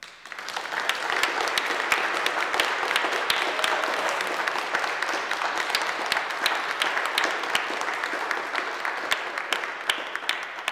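Wedding guests applauding, many people clapping together. The applause builds within the first second and tapers off near the end.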